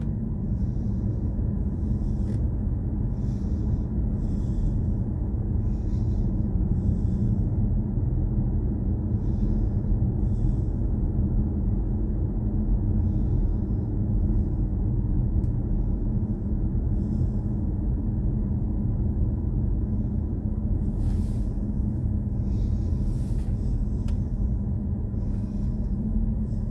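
Steady low rumble inside the cabin of a BMW i4 M50 electric car, with no engine note: road and tyre noise while driving. Faint short hisses come and go over it.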